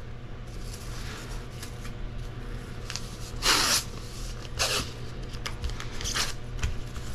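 Masking tape being pulled off the roll in several short rasping strips, the longest and loudest about halfway through, over a steady low hum.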